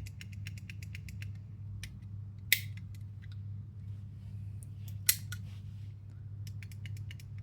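Small mechanical clicks from an airsoft rifle's trigger and selector being worked. Two clicks stand out as louder, about two and a half seconds in and about five seconds in.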